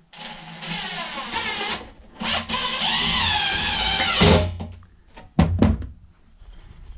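Cordless drill driving long wood screws through plywood into a wooden frame, in two runs of about two seconds each, the motor whine wavering in pitch as the screw bites. A couple of dull knocks follow.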